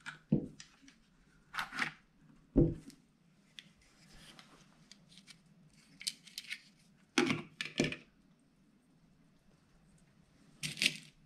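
Clicks and knocks of a Crosman 1077 air rifle's plastic receiver and rotary pellet magazine being handled at the magazine slot, with a few sharper knocks standing out among lighter clicks.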